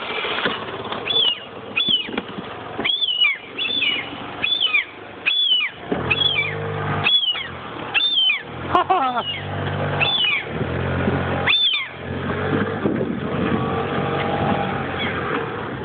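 A gull calling over and over: about a dozen sharp, downward-hooking yelps during the first twelve seconds, then stopping. A low drone runs underneath, strongest in the middle.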